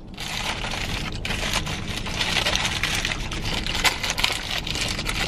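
Fast-food paper wrapping crinkling and rustling as it is handled close to the microphone, a steady stream of small crackles.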